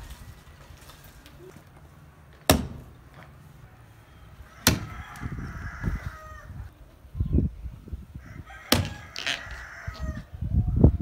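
Axe blows chopping into a tree's base and roots: three sharp chops among duller thuds from digging. A rooster crows twice in the background, the first call with the second chop and the second with the third.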